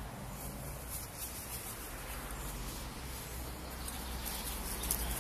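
Outdoor ambience with a steady low rumble on the microphone and a few soft rustles of dry leaves near the end.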